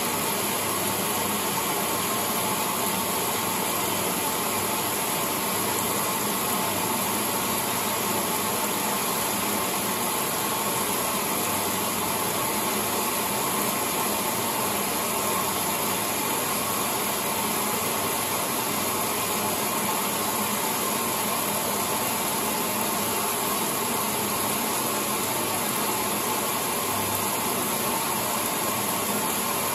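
Late-1970s Maytag A806 top-load washing machine running with a steady, even noise and a low hum underneath, with no break or change.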